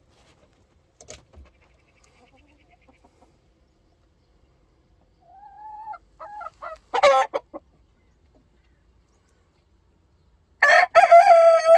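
Brahma rooster crowing twice: once around the middle, building to a loud call, and again near the end.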